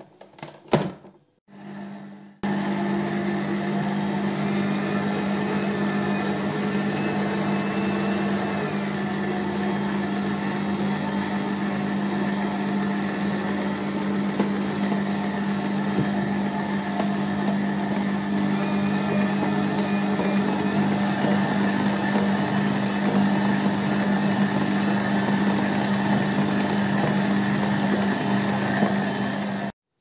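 Kenwood stand mixer's motor running steadily with a constant hum as its dough hook kneads bread dough, starting about two seconds in after a few clicks and cutting off suddenly just before the end.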